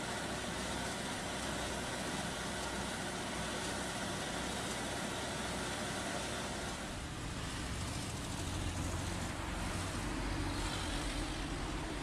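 Street traffic noise: a steady even hiss of road sound, with a low car rumble building over the last few seconds as a car drives past.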